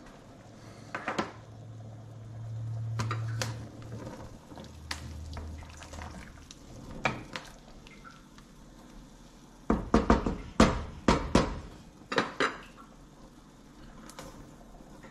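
Kitchen clatter of metal pots, pans and utensils being handled: scattered knocks and clicks, with a low hum a few seconds in and a run of louder knocks about ten seconds in.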